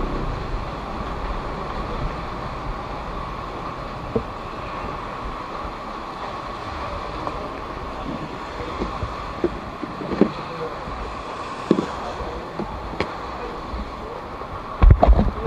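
Steady hiss of heavy rain on a wet street, with a few scattered knocks and a short cluster of loud low thumps near the end.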